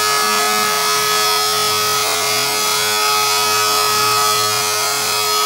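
Shapeoko 3 CNC router's spindle running at a steady pitch while its bit cuts lettering into a wooden sign, the motor's whine over the rough noise of the cut.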